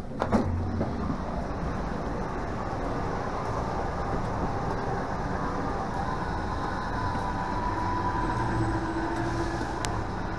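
City street traffic: a steady rumble of passing vehicles, with a heavier vehicle's engine hum coming through in the second half. A few sharp clicks near the start.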